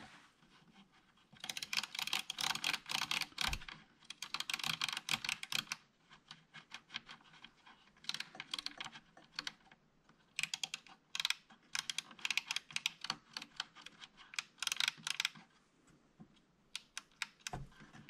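Hands handling small parts inside an open power amplifier: quick runs of small clicks and rustles, dense in the first few seconds and then coming in sparser clusters.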